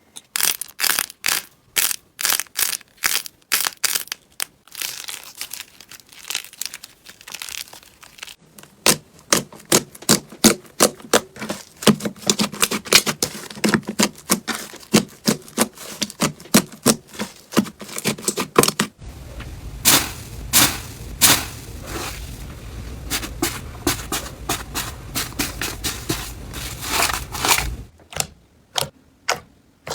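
Slime being squished and poked, giving quick series of sharp, wet clicks and pops. The texture changes a few times, as between different batches of slime.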